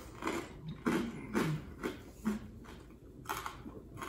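A person breathing hard through a burning mouth from very hot chili food, in short, uneven gasps and puffs about two a second, some with a faint voiced groan.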